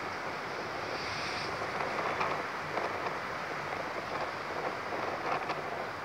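Strong storm wind blowing in gusts, a steady rushing that swells and eases, with the wind buffeting the phone's microphone.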